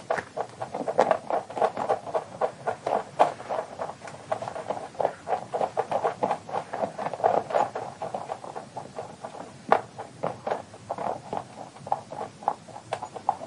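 A rabbit digging in sand with its front paws: quick, uneven runs of scratching strokes.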